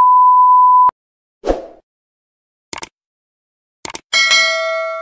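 A steady test-tone beep from a colour-bars test card, lasting just under a second. Subscribe-button animation sound effects follow: a short whoosh, a couple of clicks, and a bell ding near the end that rings on and fades.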